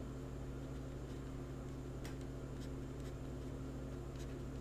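Steady low electrical hum of room tone, with a few faint ticks of a stylus on a tablet as a word is handwritten.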